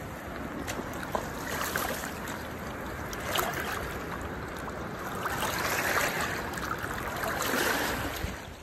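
Shallow river water swishing and splashing around a hand holding a trout in the current, rising in several louder swells as the fish is let go.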